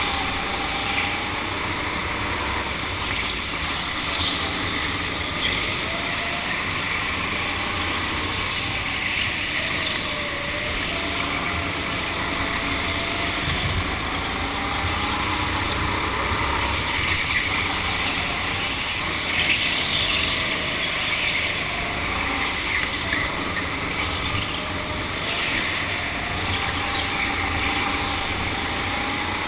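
Go-kart motor running at speed, its pitch rising and falling again and again as the kart slows for corners and accelerates out, over a steady rush of wind and tyre noise.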